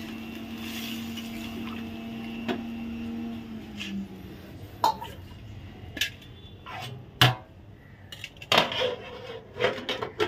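A flat metal spatula clanks and scrapes against a metal cooking pan as a potato and papaya curry is stirred, with sharp knocks coming thick and fast in the second half. A metal lid is set on the pan near the end. A steady low hum runs through the first few seconds.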